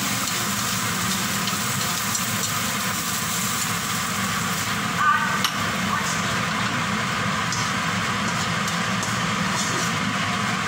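Steady hiss of eggs frying in a nonstick wok over a low hum, as they are stirred and then scraped out with a wooden spatula. A short clatter about five seconds in as the wok is tipped over the bowl.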